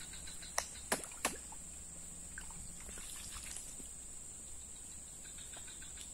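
Small splashes and trickling of pond water as hands work at the water's edge, with three sharp clicks in the first second and a half. A steady high-pitched insect drone runs underneath.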